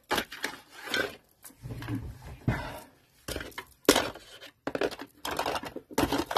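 Small craft supplies being moved about and rummaged through on a desk: an irregular run of knocks, clicks and rustles from items such as plastic ink pad cases being shifted while a tool is searched for.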